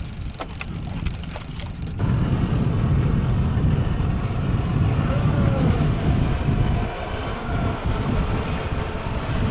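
A boat under way: a steady low rumble of motor and wind rush that swells over the first couple of seconds and then holds loud and even.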